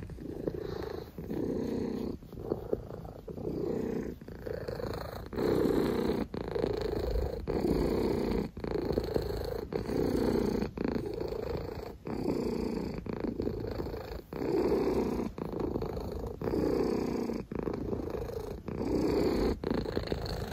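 Domestic cat purring steadily, in a rhythmic pulse with each breath, about once a second.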